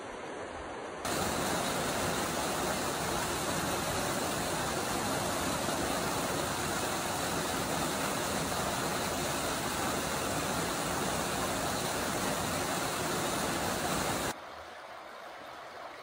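Creek water rushing over a low rock ledge in a loud, steady rush. It starts abruptly about a second in and cuts off near the end, giving way to the softer flow of a wide, shallow river running over gravel.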